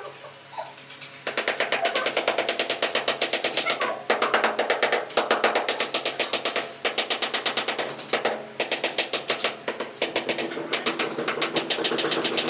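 Rubber mallet tapping a large ceramic wall tile to bed it into the tile adhesive. The rapid taps come several a second in quick runs with short gaps, starting about a second in.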